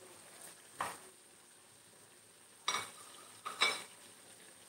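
A wooden spoon stirs chunks of pork and bell pepper in a black pot, scraping and knocking against it three times: once about a second in, then twice near the end. A faint steady sizzle runs underneath as the stew cooks down, somewhat dry.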